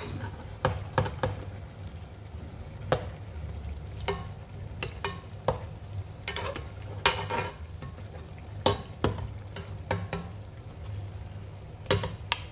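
Metal spoon and wooden spatula scraping and knocking irregularly against an aluminium pot as pieces of fish are gently turned over, with fish frying over low heat underneath.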